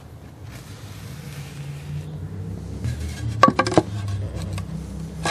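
Sharp hard clinks and knocks, a quick cluster about three and a half seconds in and another near the end, over a low steady hum.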